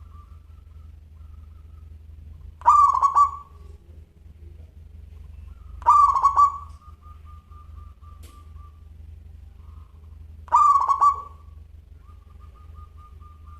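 Male zebra dove (local perkutut) singing: three loud cooing phrases about three and a half seconds apart, with a faint rapid rolling trill running between them.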